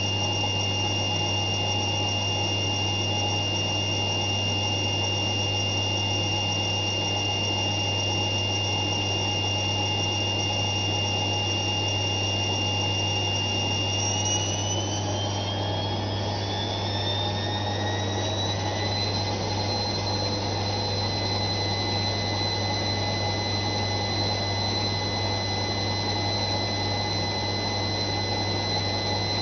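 Zanussi ZWF 1621 W washing machine spinning, a steady high whine over a low hum. About halfway through, the whine rises in pitch over a few seconds as the drum speeds up, then holds at the higher pitch.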